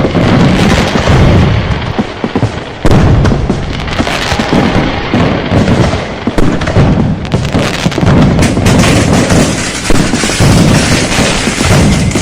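A dense, continuous barrage of firecrackers and fireworks going off, bangs and booms overlapping with no gaps, with a sharp loud bang about three seconds in.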